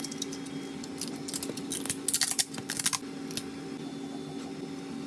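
A steady low hum, with a flurry of sharp clicks and rattles of small hard objects from about one second in to about three and a half seconds in.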